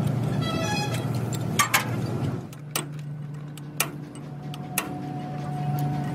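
Sharp metallic clicks of a ring spanner working the bolts on a tractor's brake housing, a few of them about a second apart, over a steady low hum.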